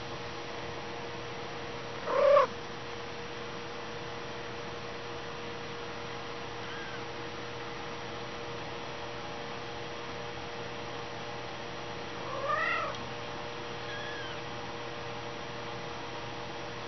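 Young Persian kittens mewing: a few short, high mews that rise and fall in pitch. The clearest come about two seconds in and around twelve seconds in, with fainter ones between, over a steady low hum.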